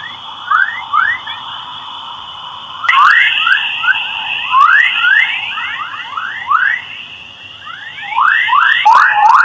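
Space plasma-wave radio emissions turned into sound: many quick rising chirps over a steady high whistle, the chirps crowding together near the end.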